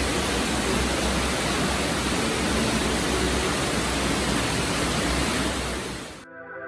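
Steady, loud rushing noise like static or rushing air, with no distinct events in it, that cuts off suddenly near the end as music starts.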